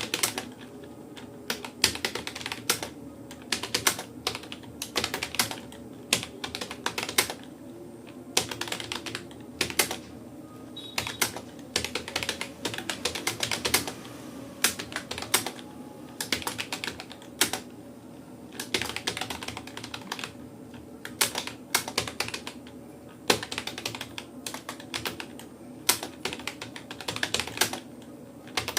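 Typing on a Rapoo computer keyboard: irregular bursts of keystroke clicks, a word or a few words at a time, with short pauses between them.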